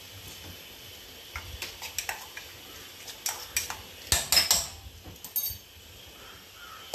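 Kitchen dishes and utensils clinking and knocking against each other: a scatter of sharp, ringing clinks starting about a second in, loudest in a quick cluster a little past the middle, then stopping.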